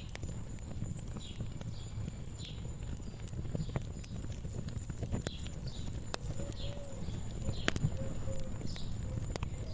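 Wood fire crackling, with irregular sharp pops over a low steady rumble. Short high bird chirps repeat in the background.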